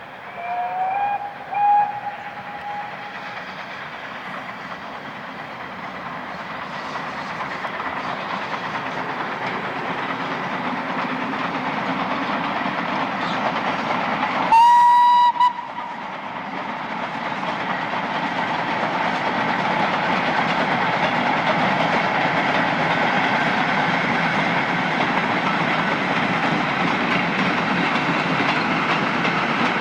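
Steam locomotive whistle: two short blasts near the start, rising slightly in pitch, then a single louder, shrill blast about halfway through. Meanwhile the running noise of an approaching train builds steadily.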